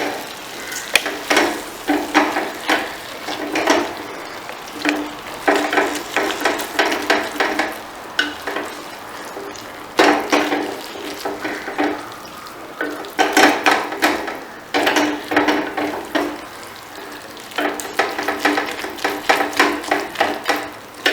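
Paneer bhurji being stirred in a kadai: a utensil scrapes and knocks against the pan in bursts of rapid strokes, with short pauses between them. A steady frying sizzle runs underneath.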